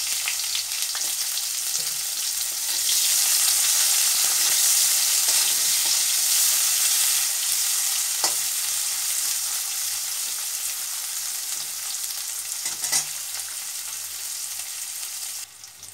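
Sliced onion frying in hot mustard oil in a stainless-steel kadai: a steady sizzle that swells a few seconds in and then slowly fades. A metal spatula stirs and knocks against the pan a couple of times.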